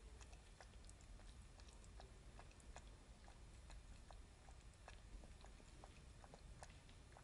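Faint, irregular small clicks, about three a second, from a kitten's mouth as it feeds with its head down in a clear plastic tub.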